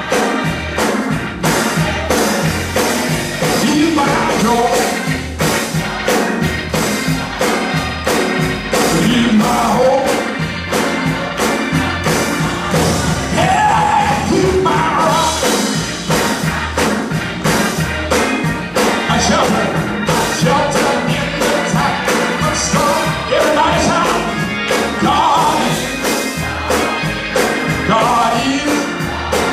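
Gospel choir singing with keyboard and drums, over a steady beat of hand claps.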